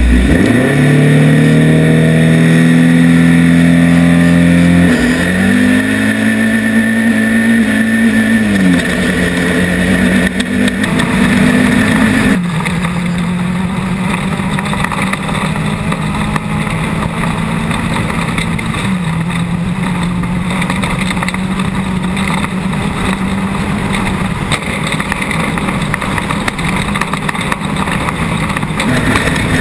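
An off-road race car's engine running hard. Its revs climb at the start and again about five seconds in, then it holds a steady pitch with small dips, over a constant hiss.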